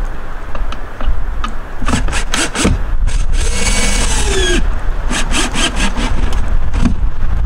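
Knocks and scraping against wood, with a longer squeaky scrape in the middle and clusters of sharp knocks either side of it, over a steady low rumble.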